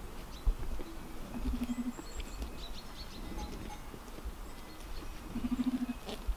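Flock of sheep: two short wavering bleats about four seconds apart, over scattered light clinking of sheep bells.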